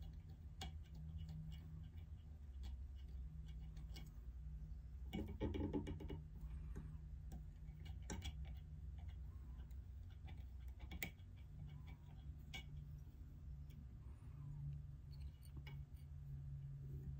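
Faint, irregular small clicks and ticks from fly-tying tools and thread being handled at a vise, with a brief louder spell of handling noise about five seconds in, over a steady low hum.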